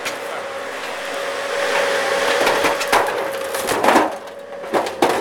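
Excavator crushing and tearing apart the body of a Mercedes 300D sedan: a loud crunching, splintering din with several sharp cracks in the second half, over a steady tone underneath.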